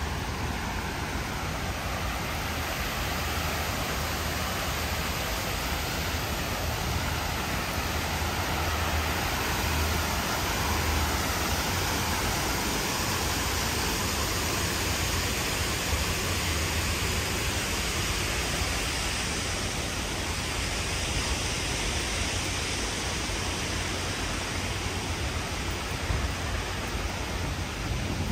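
Steady, even rushing noise with a low rumble underneath, holding level throughout with no distinct events.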